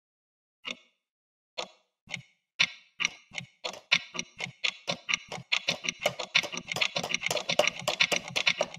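Clock ticking sound effect: single ticks about a second apart at first, speeding up steadily to several ticks a second, like a clock in fast-forward.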